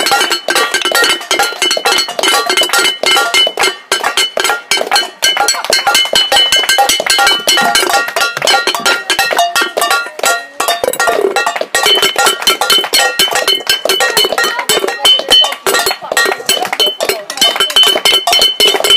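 Metal pan struck rapidly and continuously with a wooden spoon, each hit ringing with a steady metallic tone.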